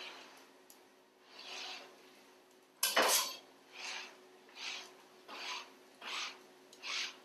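A towel wiped in repeated strokes across a plastic cutting board, one soft swish a little faster than once a second, clearing off loose herbs and pepper. One sharper knock about three seconds in is the loudest sound.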